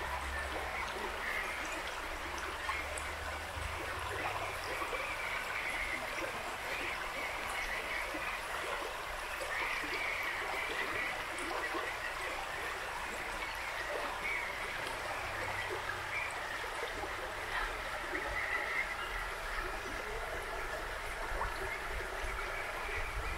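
A mid-sized river flowing: a steady, constant rush of water.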